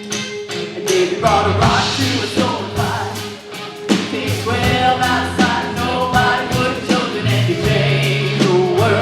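Live contemporary worship music: a band with drums and bass playing while voices sing. The drums hit in a steady beat.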